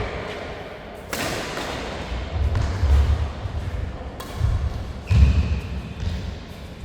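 Badminton doubles rally: two sharp racket strikes on the shuttlecock, about a second in and about four seconds in, among heavy thuds of players' footfalls on the court floor.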